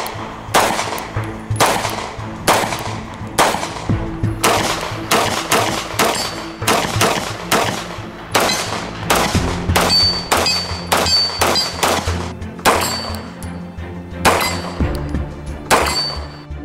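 Grand Power K100 MK12 9mm pistol firing many shots, some in quick strings, a few followed by a short high ring, over background music.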